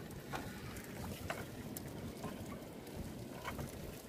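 Net being hauled aboard a small fishing boat at sea: low wind and water noise with a few light clicks and knocks scattered through.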